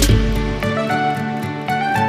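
Background music: plucked-guitar melody over a steady beat, the bass and drums dropping out under a second in.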